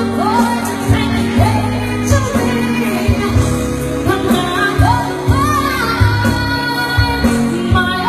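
A pop song sung by a solo voice over a backing track with a steady beat.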